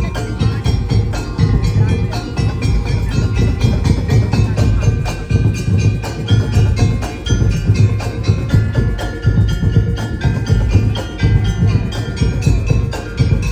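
Percussion ensemble playing live: fast, dense strikes on tuned bars, with a deep drum keeping a steady beat underneath.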